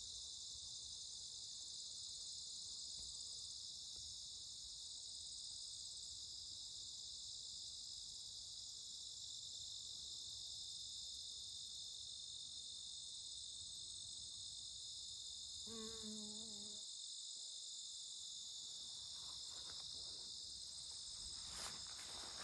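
Steady high-pitched chorus of crickets. About sixteen seconds in, a honeybee buzzes briefly past the microphone for about a second, and near the end footsteps start brushing through the grass.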